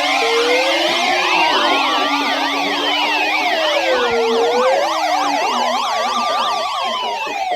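Several sirens sounding together: a slow wail rising and falling over about five seconds, with fast yelping sirens warbling over it several times a second. A lower wavering tone drops out about two-thirds of the way through.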